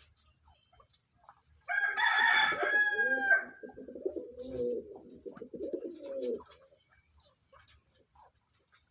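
A loud, high-pitched bird call lasting under two seconds, followed by about three seconds of low, wavering pigeon cooing.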